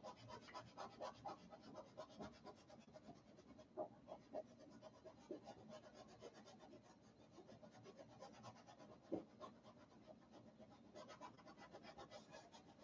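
Faint, irregular scratching of a paintbrush working acrylic paint on a canvas, with a few slightly louder taps.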